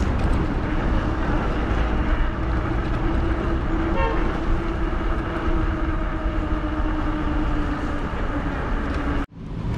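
Wind rushing on the microphone and street traffic during an e-bike ride, with a steady hum underneath and a brief toot about four seconds in. The sound drops out suddenly for a moment near the end.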